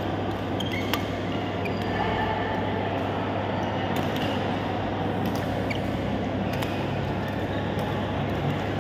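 Badminton hall ambience: a steady hum, with sharp ticks of rackets hitting the shuttlecock and a few short squeaks of shoes on the court floor.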